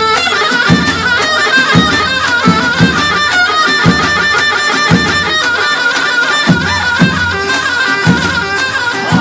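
Halay dance music: a fast, ornamented lead melody over a steady, thumping drum beat.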